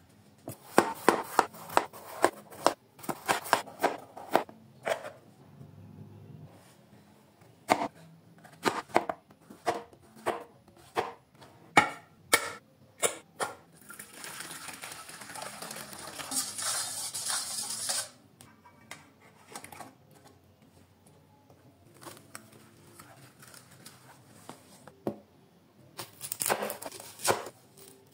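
Kitchen food-prep sounds: a run of sharp knocks and clinks against a stainless steel bowl and cutting board, then hot water poured from a kettle into the steel bowl onto salt and spices as a steady hiss for about four seconds, and near the end a kitchen knife slicing through a red onion onto a plastic cutting board with quick crisp cuts.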